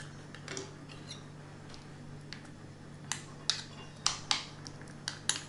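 A few soft knife cuts through a banana, then a metal spoon clinking sharply against a glass jar, about six clicks in the last two and a half seconds, as banana slices are pressed down into the jar.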